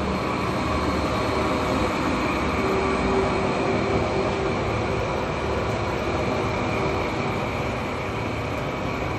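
Steady background rumble and hiss with a faint hum running through it, unbroken and fairly loud.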